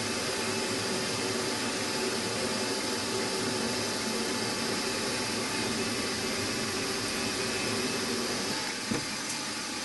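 Drilling machine running steadily, its spindle turning a 3.2 mm twist drill that is boring down into a metal block and steel shaft, throwing out small chips.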